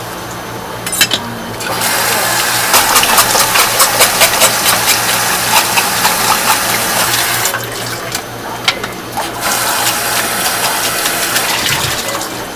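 Water running, likely from a tap, in two spells of several seconds each, with small splashing clicks, over a steady low hum.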